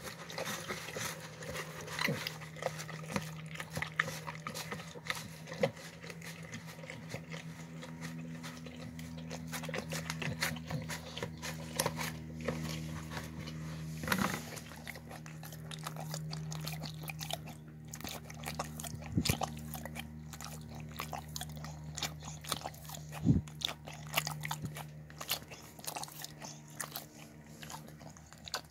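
Dog eating from a plastic tub, with wet chewing, smacking and licking in quick, irregular clicks, over a steady low hum.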